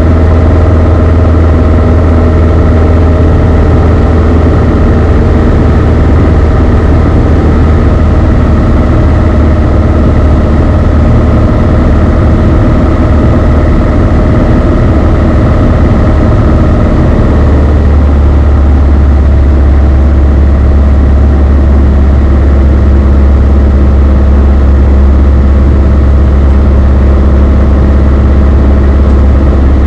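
Cabin noise of a Beechcraft Sundowner 180 in flight: its four-cylinder Lycoming O-360 engine and propeller droning steadily. About seventeen seconds in, the low drone shifts slightly lower in pitch.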